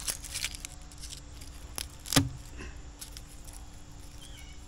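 Garlic cloves being pulled off the bulb and their papery skins peeled by hand: light crackling and rustling, with a sharp snap about two seconds in.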